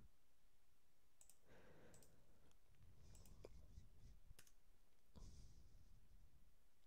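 Near silence with a handful of faint, short clicks from a computer mouse and keyboard.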